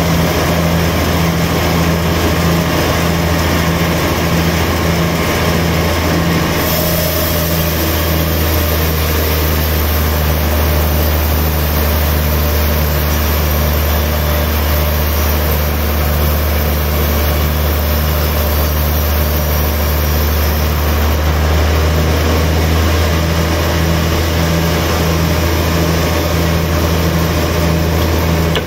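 Large sawmill band saw running with a loud, steady low hum and a regular pulsing under it, as its blade rips lengthwise through a big log on the carriage. A higher hiss joins about seven seconds in and fades away a little after twenty seconds.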